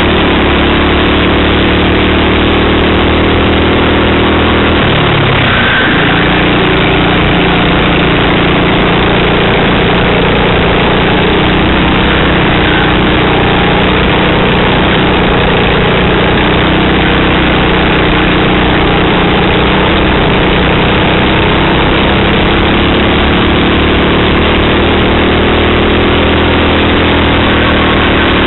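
Racing kart engine at race pace, heard loud and close from a camera on the kart. The revs drop sharply about five seconds in and climb again, then rise and fall with the corners, falling once more near the end.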